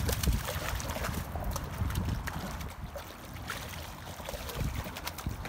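A hooked brown trout thrashing at the surface in shallow water, throwing up irregular splashes.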